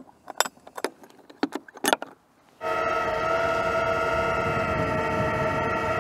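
Metal clicks and rattles from handling a truck camper's corner jack. About two and a half seconds in, the Palomino Rogue camper's electric jack motors start and run with a steady, unchanging whine.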